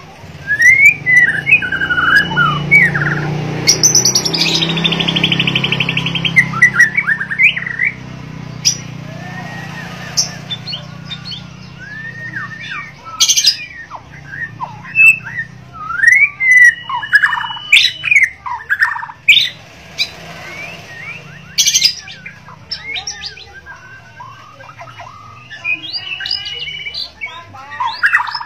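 White-rumped shama (Bornean murai) singing in full song from its cage: loud, varied whistled phrases that glide up and down, broken by a fast buzzy rattle about four seconds in and several sharp clicks. A low hum runs underneath for the first half.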